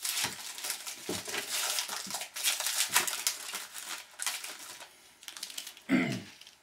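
Foil wrapper of a hockey card pack crinkling and the cards inside being handled: a dense run of crackles and rustles that thins out toward the end.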